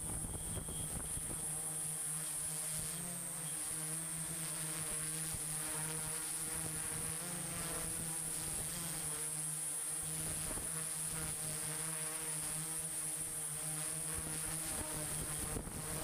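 Small electric motors running with a steady buzzing whine whose pitch shifts slightly now and then, with a thin high whistle above it.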